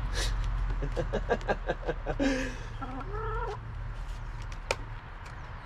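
A hen clucking in a quick run of short notes, then two longer, drawn-out calls. A single sharp click sounds near the end.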